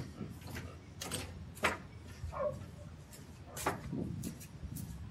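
Outdoor ambience: a low steady wind rumble with scattered sharp clicks and taps at uneven intervals, and a short falling call about halfway through.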